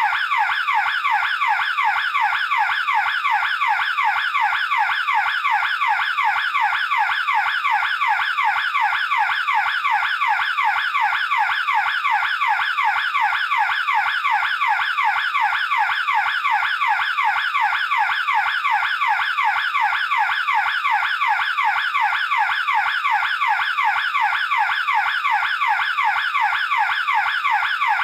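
Electronic burglar alarm siren sounding continuously: a loud, fast, evenly repeating sweeping wail with no break.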